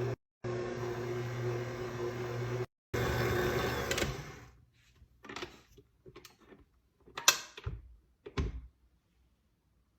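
An electric kitchen appliance's motor running steadily, then winding down about four seconds in. A few sharp knocks follow, the loudest a little after seven seconds.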